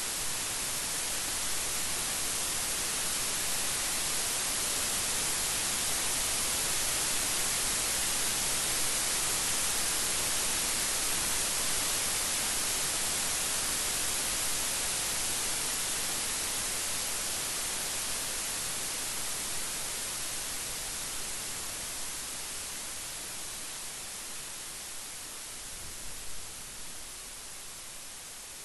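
Steady rain, a dense even hiss that swells slightly and then gradually eases off over the last third. No thunder.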